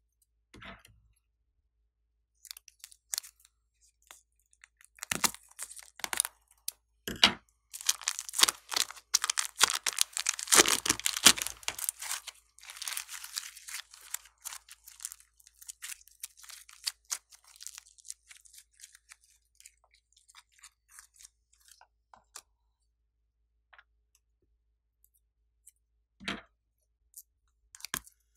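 Slime packed with small foam beads being squeezed and kneaded in a plastic piping bag: dense crunching and crackling of the beads, thickest about halfway through, then thinning to scattered crackles. One louder click near the end.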